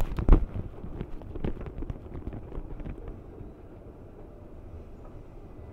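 Heavy thumps and a run of lighter clicks and knocks as someone steps onto an escalator, then the escalator's steady low rumble as it carries them up.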